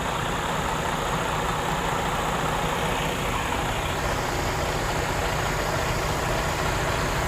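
Truck engine idling steadily, with a thin high hiss joining about four seconds in.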